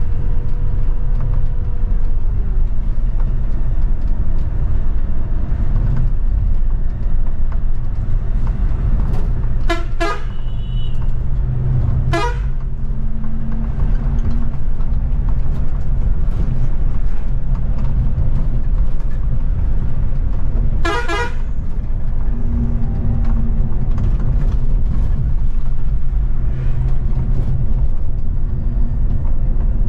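Steady low rumble of a moving bus's engine and tyres on the road. A rapidly warbling horn sounds three short times: about ten seconds in, again two seconds later, and once more about twenty-one seconds in.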